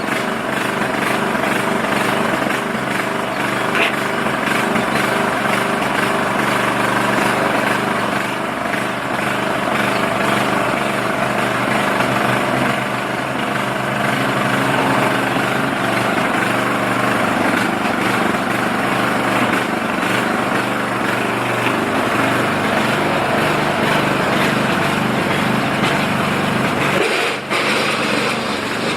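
Tractor engine running steadily, with a brief drop in level near the end.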